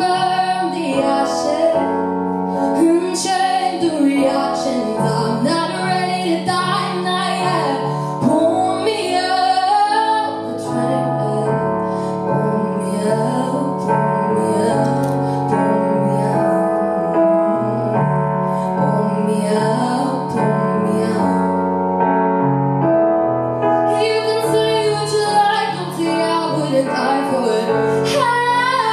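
A girl's voice singing a melody into a handheld microphone over sustained keyboard chords.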